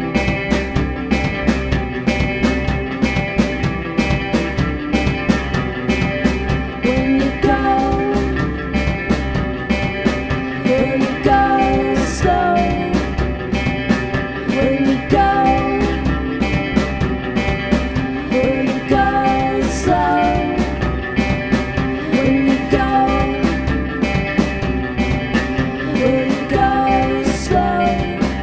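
A band playing a song live, with a steady, evenly spaced drum beat under sustained pitched instrument parts.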